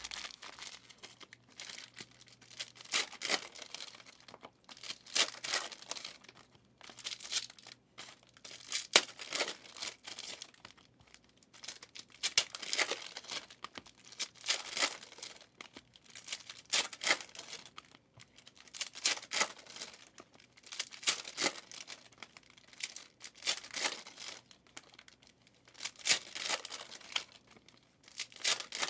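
Trading card pack wrappers being torn open and crinkled, in repeated bursts about every two seconds.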